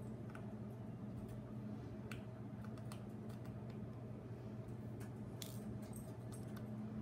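Small, sparse clicks and ticks of a precision screwdriver and tiny screws working on a Kindle's circuit board, over a steady low hum.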